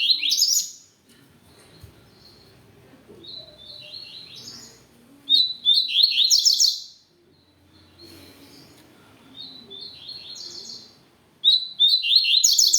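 Male double-collared seedeater (coleiro) singing: bursts of rapid, high notes, with three loud phrases a few seconds apart and softer phrases between them.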